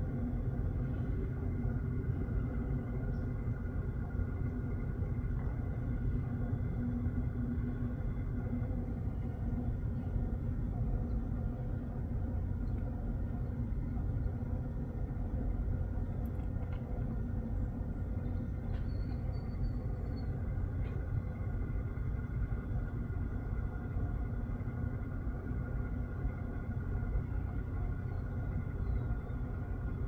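Steady low background rumble with a faint hum running under it, with one faint short high chirp about two-thirds of the way through.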